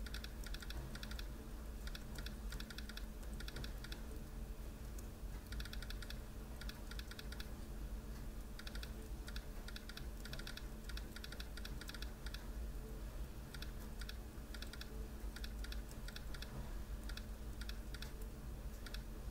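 Laptop chiclet keyboard being typed on, fast runs of keystrokes broken by short pauses, as in a touch-typing drill. A low steady hum sits underneath.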